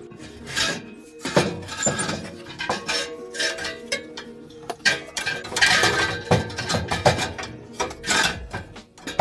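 Irregular metal clanks and knocks from an old truck exhaust pipe being wrestled loose by hand for removal.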